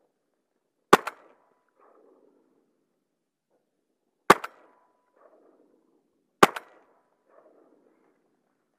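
Three close shotgun shots: one about a second in, one about four seconds in and one about two seconds after that. Each is a single sharp report with a short tail.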